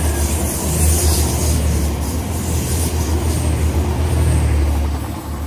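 TransPennine Express Class 185 diesel multiple unit passing at speed, loud: a steady low engine drone under the rush of wheels and air, fading near the end as the last car goes by.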